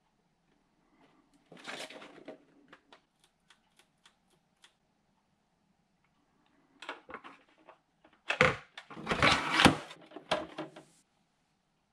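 Hands handling and fitting together 3D-printed plastic model-airplane parts: scattered clicks and taps with short bursts of scraping and clattering, loudest in a busy stretch from about eight to ten seconds in.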